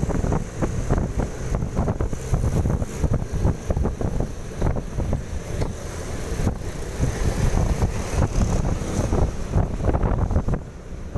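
Wind buffeting the microphone over the road noise of a moving car, with rapid gusty fluctuations.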